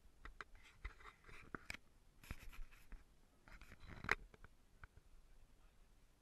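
Faint handling noise from a handheld camera: scratchy rubbing with scattered clicks, the loudest a sharp knock about four seconds in.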